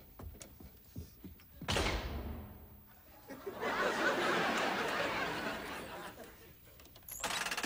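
Sitcom studio audience laughing for about three seconds, a few seconds in, after a sudden thunk a little under two seconds in.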